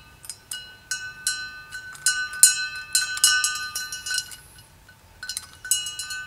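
Stainless steel pressure tank ringing like a bell, always at the same pitches, with each of a quick run of metallic clicks and taps as the quick-release connector and tubing at its neck are worked. The taps come thick for about four seconds, pause briefly, then start again near the end.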